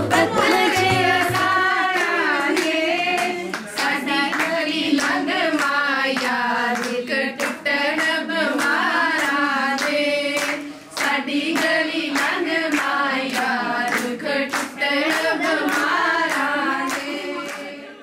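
A group of women singing a wedding folk song together, clapping their hands in a steady beat with no instruments. A backing track with a low bass fades out in the first couple of seconds.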